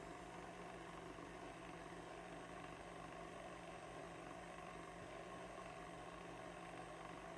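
Stand mixer's motor running steadily, beating heavy cream in the bowl at a low speed.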